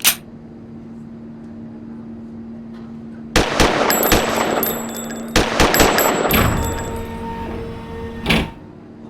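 Gunfire sound effect: a few sharp single bangs, then a dense burst of rapid machine-gun shots lasting about three seconds, and one more bang near the end, over a steady low hum.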